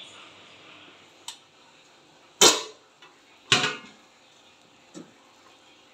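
Aluminium steamer lid being lifted off a steaming pot: two loud metallic clanks about a second apart, each with a short ring, and a lighter tap before and after.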